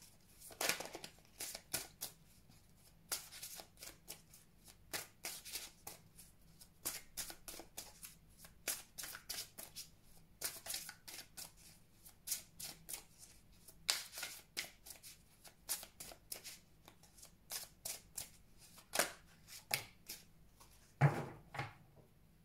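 A deck of tarot cards shuffled by hand: many quick, irregular flicks and swishes of cards sliding over one another. Near the end, one louder stroke as a card is laid down on the wooden table.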